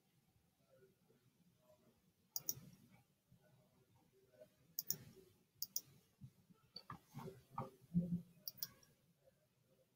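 Computer mouse clicks: four sharp press-and-release clicks spaced a couple of seconds apart, as points are placed with SketchUp's Line Tool. Softer, duller knocks come in between near the end.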